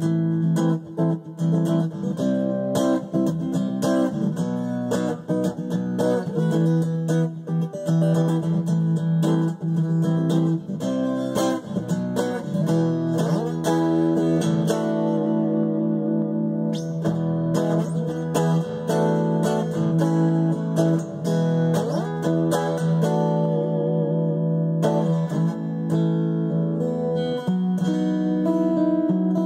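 Strat-style electric guitar played through a newly installed acoustic-style pickup, giving an acoustic-ish tone: a continuous run of picked notes and chords, heard through a phone's microphone.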